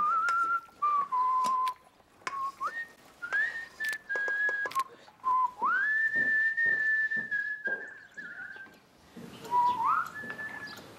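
A person whistling a slow tune, holding long notes and sliding up into new ones between short phrases. There are light clinks of a spoon on dishes.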